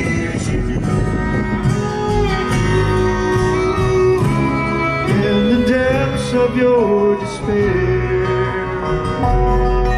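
Bluegrass band playing live through an outdoor stage's sound system, with acoustic guitar and fiddle and a melody line that slides up and down.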